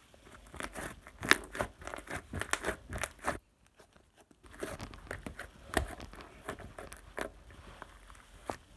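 Irregular crinkling and crackling, like something being crumpled or handled close to the microphone. It stops dead for about a second partway through, then resumes.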